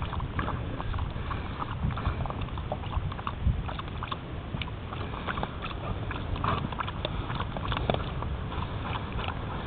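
Dogs drinking water from a bowl, lapping in a run of small, irregular wet clicks.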